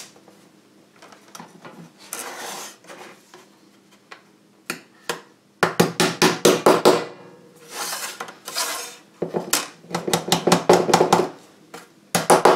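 Rubber mallet tapping the tight-fitting joints of a CNC-cut HPL frame together on a worktop: quick runs of sharp knocks, several a second, loudest from about halfway through and again near the end, with quieter knocks and handling before.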